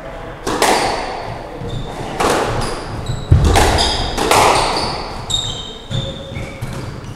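A squash rally in an echoing court: the rubber ball is struck by rackets and slams off the walls about five times, roughly once a second, each hit ringing on, the strongest with a deep thud about three seconds in. Short high squeaks of shoes on the wooden court floor come between the hits.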